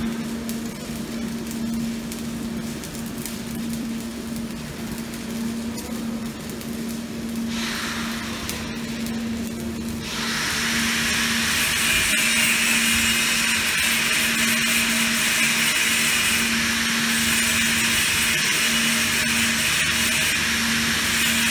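Stick-welding arc burning a 7018 electrode on pipe, crackling and hissing steadily as the bead is run. The crackle grows much louder and fuller about halfway through and holds there.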